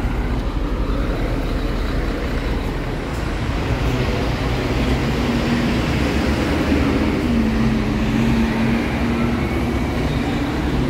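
Tour coach's diesel engine running as it drives past close by, its steady hum strongest about halfway through, over a constant low street rumble.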